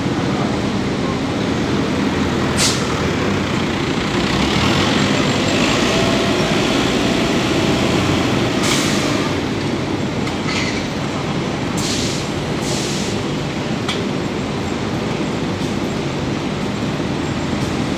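Automatic bag opening and emptying machine running: a steady mechanical drone and hum, with several short sharp sounds as its gripper lifts a sack from the pallet.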